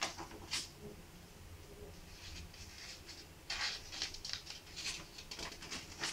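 Paper pages of a spiral-bound notepad rustling as they are handled and turned: a brief rustle near the start, then a run of quick rustles from about halfway through to the end.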